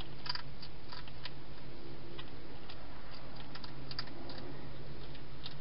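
Wild hedgehog eating from a dish, its chewing heard as a dozen or so irregular crisp clicks, over a steady low hum.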